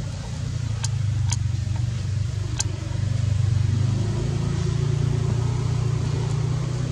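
Low, steady hum of a motor vehicle's engine, growing louder about three seconds in, with a few short sharp clicks in the first three seconds.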